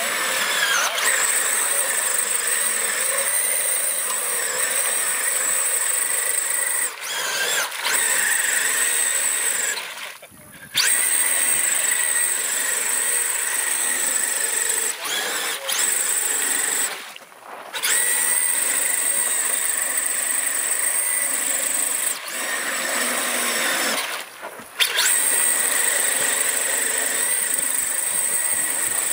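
Radio-controlled truck's electric motor whining at full throttle as the truck churns through a mud pit. Three times the whine cuts out for under a second, about ten, seventeen and twenty-four seconds in, as the throttle is let off, then picks straight back up.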